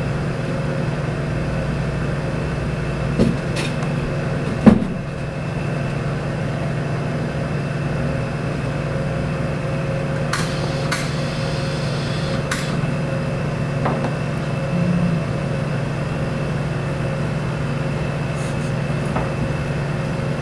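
Sharp clinks and knocks of glassware and a metal clamp being handled inside a glove box, over a steady machine hum; the loudest knock comes about five seconds in, and several lighter clicks follow later on.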